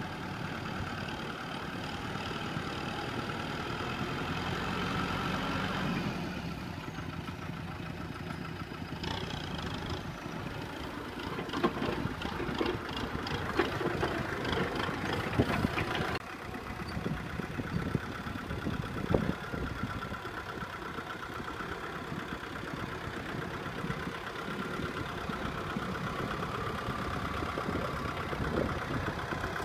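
Kubota M6040SU tractor's diesel engine running steadily while it pulls a trailer laden with rice sacks through mud. The engine note changes about six seconds in, and a run of irregular knocks and clatter comes through in the middle.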